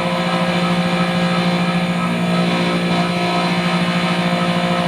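Manitowoc ice machine running in its freeze cycle: a steady hum from its refrigeration compressor and condenser fan, a strong low drone with several fainter steady tones above it.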